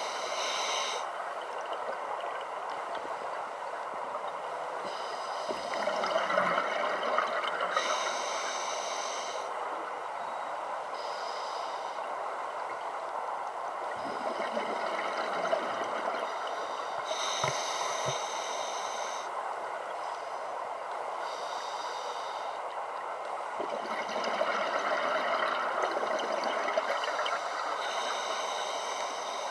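Scuba regulator breathing heard underwater: slow, repeated breaths, each a hissing inhalation through the demand valve followed by a bubbling exhalation, every few seconds.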